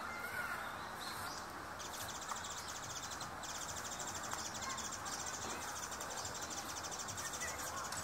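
Outdoor ambient noise with a few faint, short bird chirps. From about two seconds in, a fast, high-pitched ticking buzz of evenly repeated pulses runs on, with one brief break.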